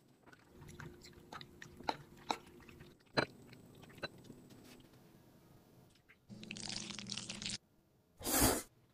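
Thick, sauce-coated noodles being handled in a ceramic jug and tipped out onto a plate: light clicks against the ceramic and wet, sticky scraping. A longer noisy stretch comes about six seconds in, and a short loud burst near the end.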